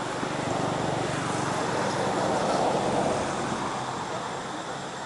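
A motor vehicle driving past, its engine hum and road noise growing louder to a peak about halfway through, then fading.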